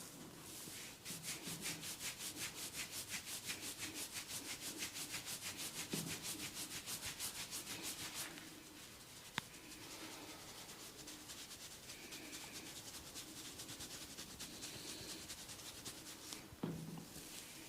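Hands scratching and rubbing hair on a scalp in a fast, even rhythm of about six or seven strokes a second. After about eight seconds this turns to a softer, steadier rubbing, with a single sharp click in the middle.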